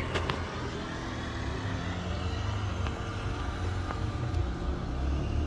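Steady low vehicle rumble with a few sharp plastic clicks, the loudest just after the start, as the glove box is unclipped and lowered from the dashboard.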